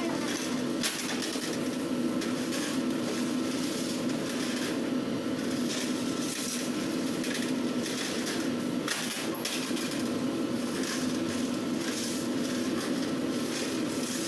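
Steady machine hum with scattered knocks and clatter of metal baking trays being slid in and out of a deck oven.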